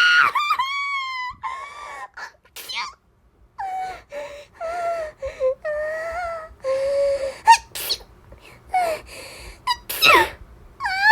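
A high-pitched voice giving a run of short, wavering whining cries, with sharp gasping breaths between them and one louder cry that falls in pitch near the end.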